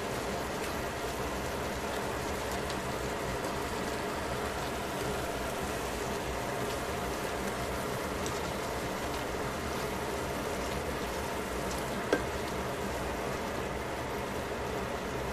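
Stew simmering in a stainless steel pot, a steady bubbling sizzle while it is stirred with chopsticks. There are light scattered ticks, and one sharp click about twelve seconds in.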